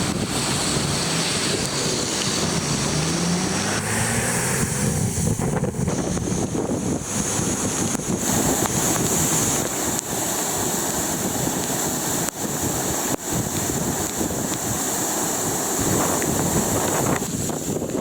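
Steady rushing noise of fast-flowing floodwater from a river breaking its banks, with wind buffeting the microphone.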